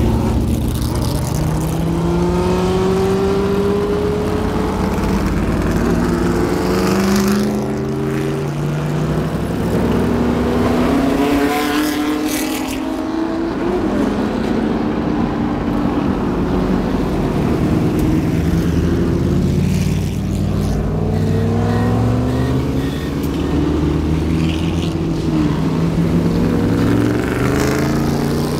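Engines of several vintage race cars pulling away one after another, each climbing in pitch and dropping back as it shifts up through the gears.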